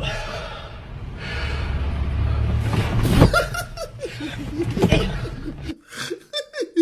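A man laughing hard in short bursts and gasps, with music underneath.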